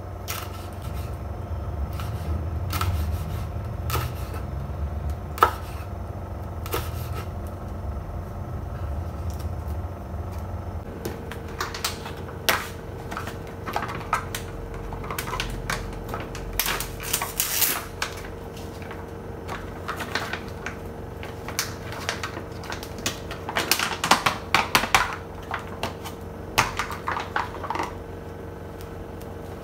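A kitchen knife slicing a green bell pepper on a wooden cutting board, with sharp taps of the blade on the board about once a second. About a third of the way in, this changes to the crinkling of a plastic flour pouch and the handling of a cardboard cornstarch box, in loud rustling flurries.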